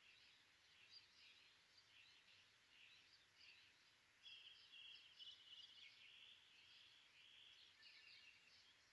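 Faint birds chirping, with a rapid, buzzy trill about four seconds in, over quiet background hiss.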